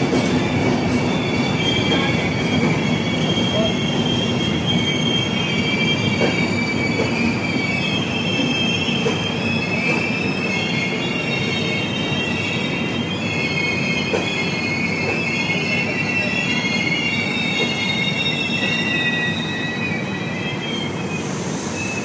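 A train rolling on the rails, a steady rumble of the wheels under a high-pitched wheel squeal that wavers between several tones; the sound eases slightly near the end.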